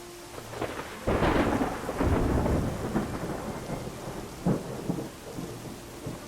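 Thunder over steady rain: a loud crack about a second in, then rolling rumble with further cracks, and another sharp crack a little past the middle.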